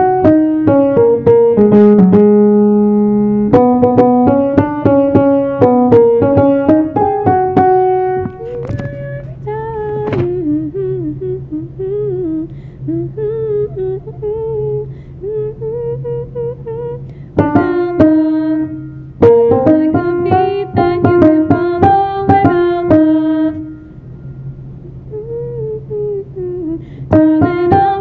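Piano accompaniment of a musical-theatre rehearsal track, striking chords over a bass line, with a single voice carrying the melody; in the middle and again near the end the piano thins out and the voice's line bends up and down on its own.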